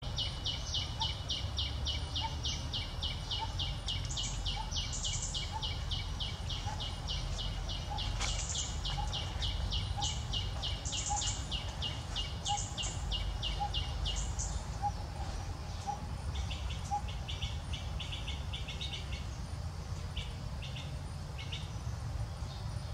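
Outdoor ambience of rhythmic high-pitched chirping, about five chirps a second, that stops about fourteen seconds in and gives way to fainter, scattered chirps, over a steady low rumble.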